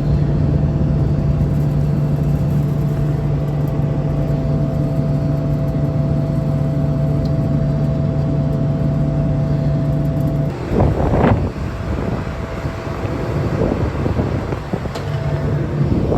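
Heavy farm machinery engine running steadily with a constant low hum. About ten seconds in the steady hum stops and irregular rumbling noise takes over.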